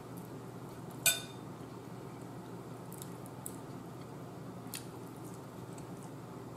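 A metal fork clinks against a plate about a second in, followed by a few fainter taps and scrapes as chicken is cut, over a low steady hum.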